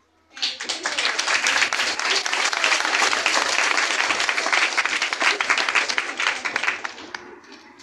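Audience applauding: many hands clapping, starting suddenly about half a second in and dying away near the end.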